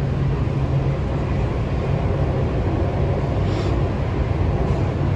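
Interior noise of an MTR C-train metro car running in a tunnel: a steady rumble of wheels on track under a constant low hum, with a brief hiss about three and a half seconds in.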